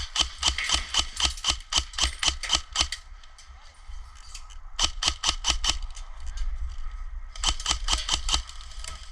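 Airsoft gun firing strings of rapid shots, about five a second: a long string of about three seconds, then two shorter strings about five and seven and a half seconds in.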